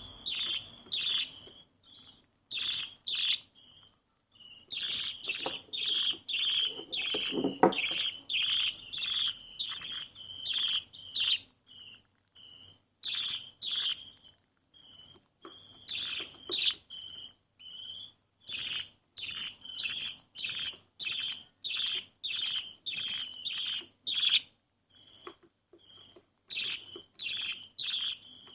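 Baby budgerigar chick giving its begging calls while being hand-fed: a rapid run of high-pitched rasping cheeps, about two a second, coming in bouts with short pauses between them.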